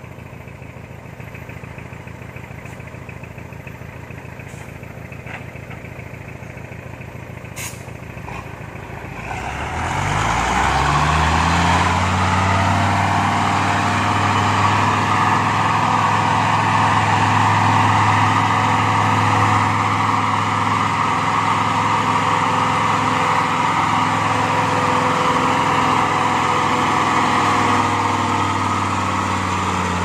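Loaded logging truck's engine, running low at first, then revving up about a third of the way in and held at high revs under load as the truck crawls through deep, wet mud.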